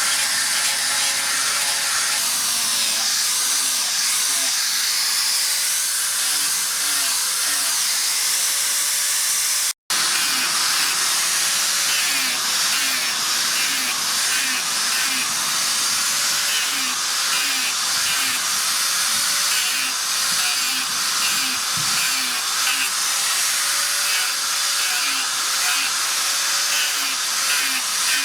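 Steady, harsh hiss of steel being ground by a power grinder while the axe is shaped and sharpened, with a faint back-and-forth pattern about once a second. It drops out for an instant about ten seconds in.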